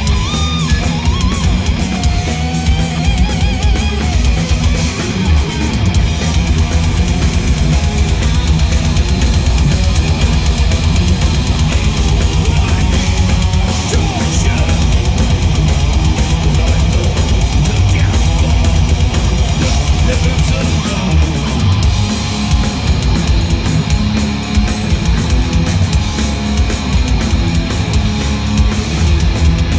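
Live heavy metal band playing loudly at a sound check: electric guitar and drum kit through the PA, continuous throughout.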